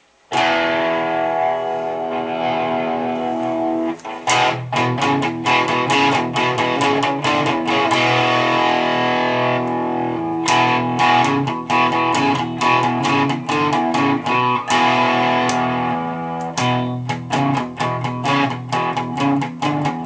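Squier Telecaster Affinity electric guitar played through an amp set to distortion: a chord is struck at the start and rings for about four seconds, then a fast run of picked chords and notes follows.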